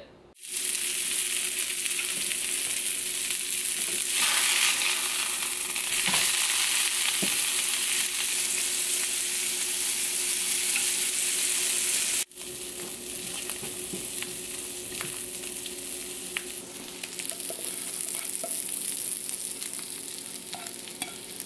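Beef burger patty sizzling in a hot frying pan, a steady crackling hiss. The sizzle breaks off sharply about twelve seconds in and carries on a little quieter, with a few small clicks.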